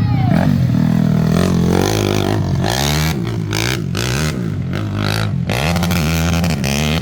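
ATV engine running under load off-road, its pitch rising and falling repeatedly as the throttle is opened and let off, with short bursts of clatter in the middle.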